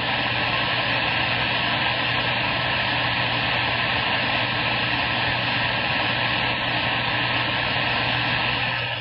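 CB radio receiver static: a steady hiss from the radio's speaker with a low hum underneath, on the open channel between transmissions.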